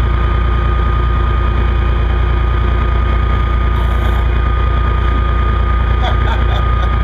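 A beam trawler's engine running steadily, a constant low drone heard from inside the boat's cabin.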